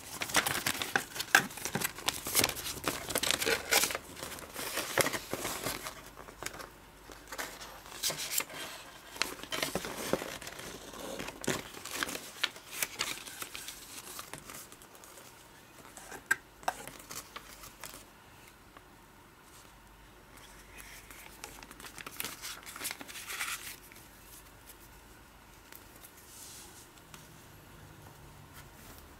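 Glossy paper leaflets and a printed catalogue being leafed through and handled: crisp page flips and paper rustling, busy at first, then sparser and quieter through the second half.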